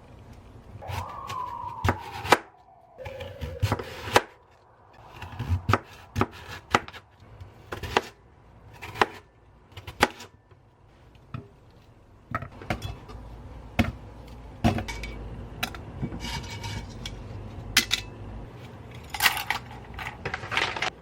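Kitchen preparation: irregular knife strikes on a cutting board and clattering of dishes and utensils, with a brief falling tone about a second in.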